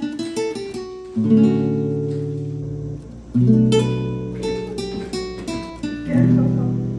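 Background music: acoustic guitar, with full chords strummed about a second in, again a little after three seconds and near six seconds, and single notes picked between them.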